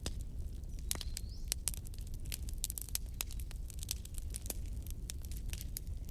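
Wood fire in a fireplace crackling, with many sharp irregular pops over a steady low rumble of the flames, and a brief thin whistle about a second in.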